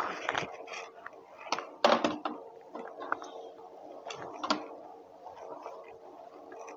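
Scattered light clicks and knocks of a computer mouse and an external keyboard being handled on a wooden table, the loudest knock about two seconds in, over a faint steady hum.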